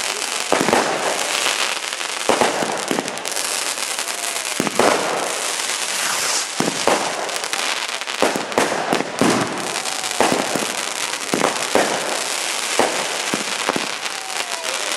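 Fireworks firing in quick succession: repeated sharp bangs, roughly one to two a second, over a steady crackle from the rising glittering tails.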